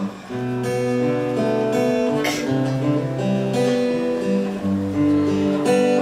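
Acoustic guitar playing the song's instrumental ending: held chords ring and change every second or so, with one sharp strum about two seconds in.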